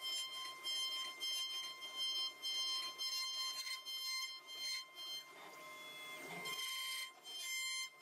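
CNC router spindle whining at a steady high pitch as its end mill cuts a floral relief into a wooden panel, the cutting noise rising and falling as the bit moves. The whine thins out for about a second and a half past the middle, then returns.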